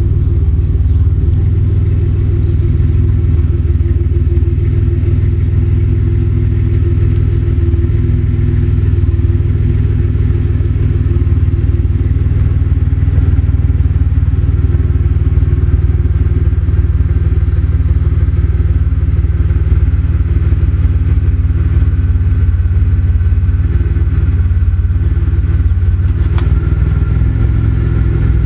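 2003 Chevrolet Impala LS's 3.8-litre 3800 Series II V6 running at low revs through a high-flow cat, resonator and dual Flowmaster mufflers, giving a deep, steady exhaust rumble with no big revs.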